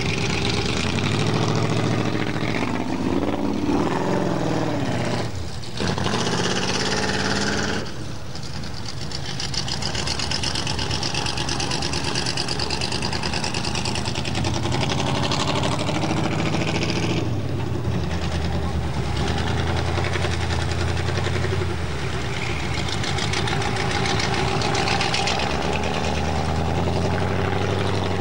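A full-size van's engine revving hard under load, its pitch climbing and falling in surges, with two brief breaks about five and eight seconds in. Near the end water churns and splashes as the van drives through the river.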